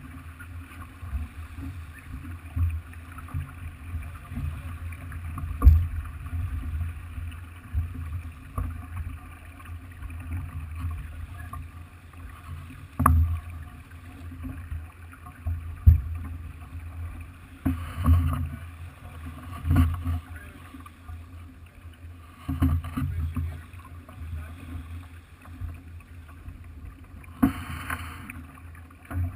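Onboard sound of a Farr 40 racing yacht under sail: a steady low rumble of wind and water, broken by a few sharp knocks and several louder rushes.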